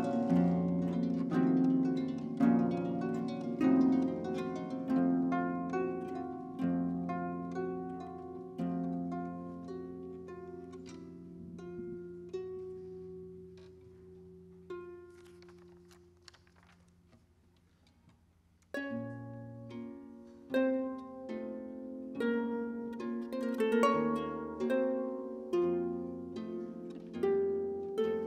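Two concert harps playing a duet, plucked notes ringing and dying away. The playing thins to a few single notes and fades to a near-silent pause a little past halfway, then both harps come back in together, fuller.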